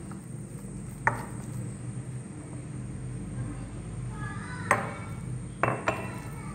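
A steel spoon stirring spice powders into a wet masala paste in a glass bowl, with four sharp clinks of the spoon against the glass that ring briefly. The loudest clink comes about two-thirds of the way through. A low steady hum runs underneath.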